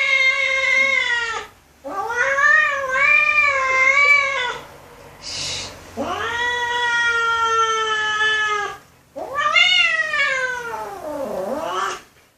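A cat giving long, drawn-out meows, four in a row, each lasting one to three seconds; the last slides down in pitch near the end. A short breathy puff comes between the second and third calls.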